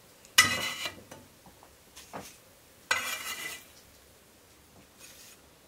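Metal utensil clinking against a frying pan and a ceramic plate as fried syrniki are lifted onto the plate. There are two sharp ringing clinks, about half a second in and about three seconds in, with a few faint knocks between them.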